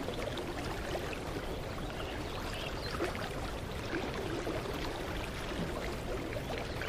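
Small creek flowing, a steady babble of moving water.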